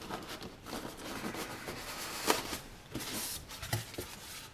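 Cardboard box and packaging being handled and rustled as a pump is taken out, with irregular clicks and one sharp knock about two seconds in.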